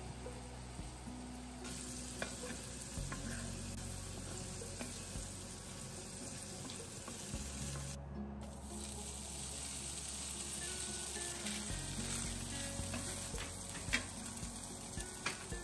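Food sizzling in hot oil in a skillet: sliced mushrooms frying, then, after a short break about halfway, chopped cooked chicken sautéing, with a wooden spatula scraping and stirring and a few sharp clicks. Soft background music with low held notes runs underneath.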